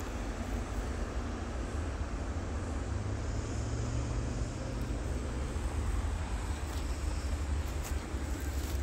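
Steady low rumble of road traffic, with a few light clicks near the end.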